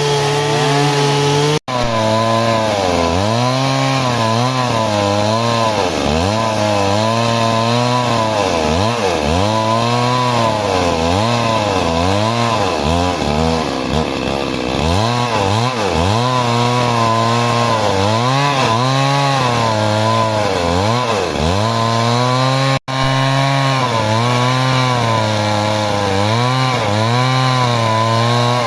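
Stihl MS 382 two-stroke chainsaw cutting wood, its engine pitch dipping and recovering over and over as the chain bites under load. The sound drops out for an instant twice.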